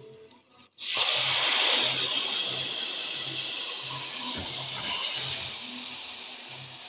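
Hot oil with frying garlic sizzling loudly as a block of frozen blended tomato is tipped into the pan. The hiss starts suddenly about a second in and slowly dies down.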